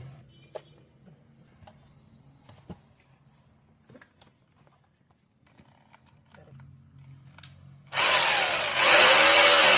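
Scattered small clicks and knocks of handling, then about eight seconds in an electric hammer drill switches on and runs loud, its motor pitch wavering slightly. This is a test run after the drill's carbon brushes have been changed.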